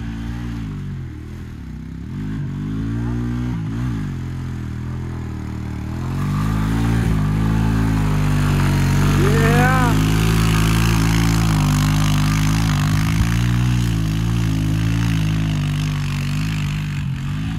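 Honda 350 4x4 ATV's single-cylinder engine driving through mud, its pitch dipping and rising with the throttle, then running louder and steadier from about six seconds in.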